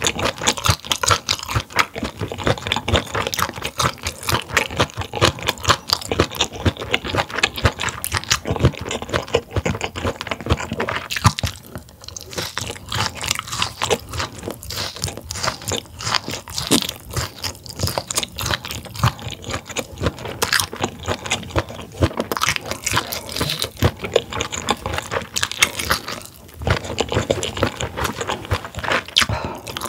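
Close-miked chewing of crisp grilled food: a rapid, steady run of crunches, pausing briefly about twelve seconds in and again near 26 seconds.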